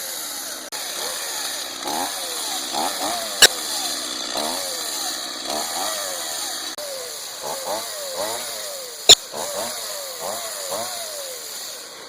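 Two-stroke chainsaw engine revved in repeated throttle blips, its pitch rising and falling with each blip. Three sharp, loud cracks are heard over it.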